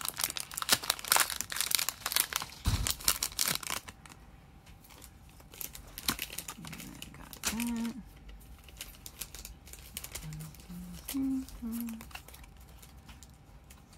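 A foil Pokémon booster pack wrapper crinkling and tearing open for the first few seconds, then softer rustles and clicks as the trading cards are slid out and handled. A few brief hummed voice sounds come in near the middle and toward the end.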